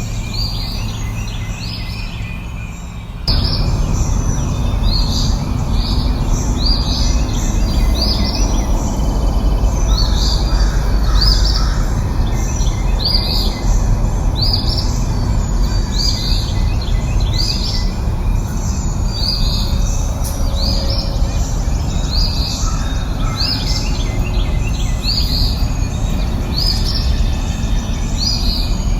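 A bird repeating a short, high, downward-sweeping chirp about once a second, over a steady rushing background noise that grows louder about three seconds in.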